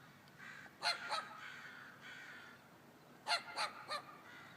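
Crows cawing: two harsh caws about a second in, then three more in quick succession after three seconds, over faint calling from more birds of the flock.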